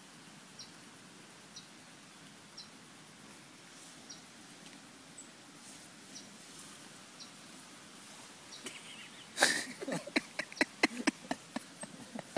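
A faint, short, high chirp repeats about once a second. About nine seconds in comes a sudden loud rushing burst, then a quick run of sharp clicks and cracks, like twigs and kindling being snapped and handled while a campfire is built.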